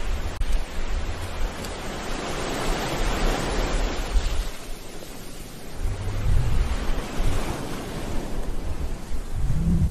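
Ocean surf: waves breaking and washing in, the rush swelling about three seconds in and again about seven seconds in, with a low rumble under each surge.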